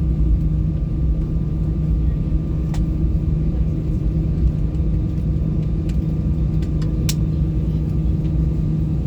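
Steady low rumble and hum inside an Airbus A320's cabin on the ground, with a couple of sharp clicks, one about three seconds in and one about seven seconds in.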